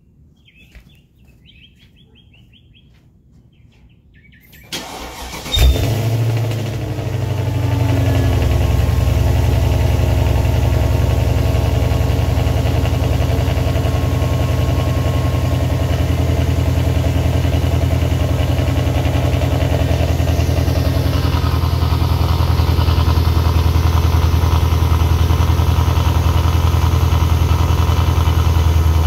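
Mercedes E55's 5.4-litre V8 cold-starting through an open exhaust: long-tube headers, X-pipe, no catalytic converters or resonators, full 3-inch pipes to stock mufflers. After a few quiet seconds with birds chirping faintly, the starter cranks briefly and the engine catches loudly about five and a half seconds in. It then settles into a steady, deep idle.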